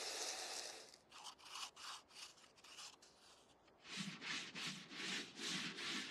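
Wooden gunstock being worked by hand with an abrasive. There is about a second of steady rubbing, then a run of short back-and-forth strokes, roughly three a second, with a brief pause midway.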